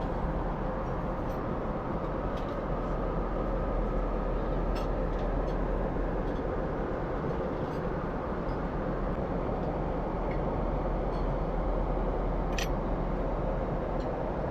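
Steady cabin noise of an airliner in cruise: the even roar of engines and airflow through the fuselage. A few faint clicks sit on top, the clearest about five seconds in and near the end.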